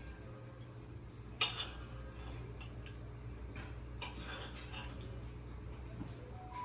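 Knife and fork scraping and clinking on a ceramic plate while a slice of roast lamb is cut, with one sharper clink about a second and a half in. A low steady hum runs underneath.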